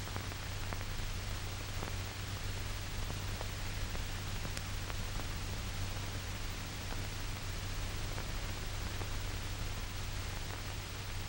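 Steady hiss and low hum of an old optical film soundtrack, with a few faint clicks.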